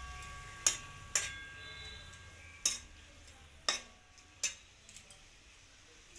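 A spatula knocking against a kadai while paneer is stirred in its sauce: about five sharp, separate knocks, one with a brief metallic ring.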